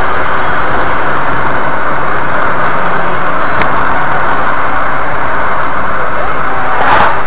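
Steady road and engine noise heard inside a moving car's cabin through a dashcam microphone, with one short click about three and a half seconds in.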